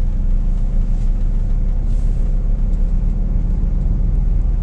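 Scania S500 truck's 13-litre six-cylinder diesel engine running at low revs, heard from inside the cab as the truck moves slowly; a steady low drone.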